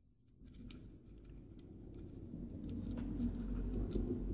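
Faint handling noise of a hard plastic TEK-LOK belt-loop holster mount and its small screws being taken out by hand: scattered small clicks and rattles over a low rumble that grows louder from about two seconds in.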